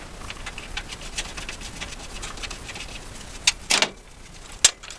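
Hand work on metal engine parts: faint small clicks and rattles of bolts and hand tools, with a few sharper metallic clinks about three and a half to four and three-quarter seconds in.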